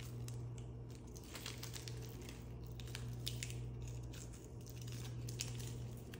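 Plastic sleeve of a frozen ice pop crinkling and crackling as it is handled, a scatter of small irregular clicks, over a steady low hum.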